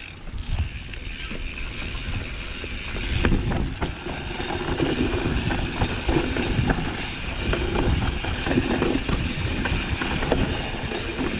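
Mountain bike rolling over a rough dirt trail: the tyres rumbling on the ground and the bike rattling and clacking over bumps, getting louder after about three seconds.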